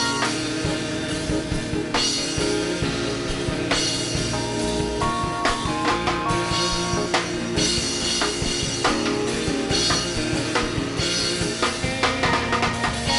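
Worship music with a full drum kit keeping a steady beat, bass drum and cymbals, under sustained instrument notes.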